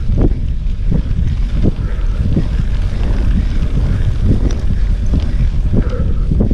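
Wind buffeting the microphone of a camera riding on a mountain bike, a steady low rumble, with irregular knocks from the bike jolting over the sandy, rutted track.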